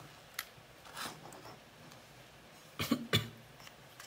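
Small scattered clicks and knocks of hand tools and metal parts against a plastic spinning fishing reel as it is taken apart. Two sharper knocks come close together about three seconds in.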